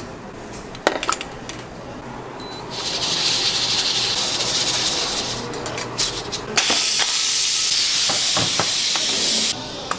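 Two long stretches of steady, high hissing, like a spray or sizzle, the second cutting off suddenly near the end. Short clinks and knocks of metal kitchenware sound around them.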